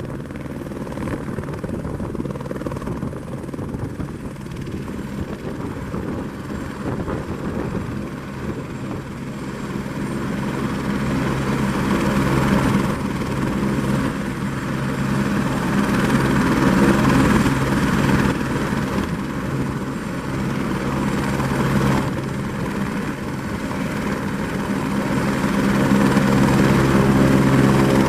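Eurocopter AS350 B3 helicopter running, its single turboshaft engine and rotors making a steady drone with a faint high whine that slowly grows louder.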